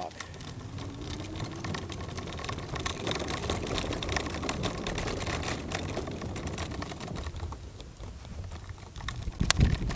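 Small wheels of a scooter rolling over a wooden plank boardwalk, making a rapid, continuous clatter as they cross the board gaps. A faint motor whine rises in pitch over the first couple of seconds. Near the end there is a sharp knock, then a lower rumbling.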